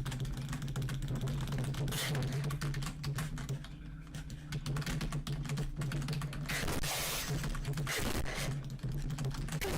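Rapid computer-keyboard typing, a dense run of clicks over a steady low hum.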